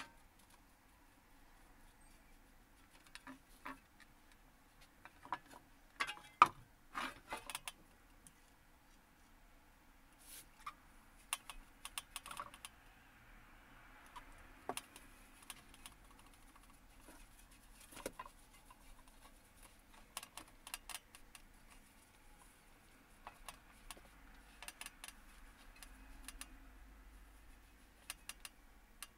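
Faint, scattered light clicks and taps from hands handling a freshly spray-painted shovel blade, its stencil sheet and a spray-paint can on a workbench, with a small cluster of clicks about six seconds in.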